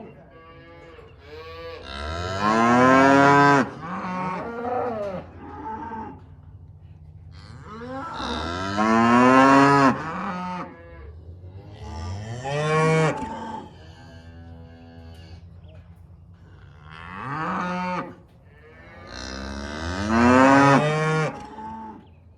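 Cattle mooing: about five long, loud bellows, each rising and then falling in pitch, with a steady low hum underneath.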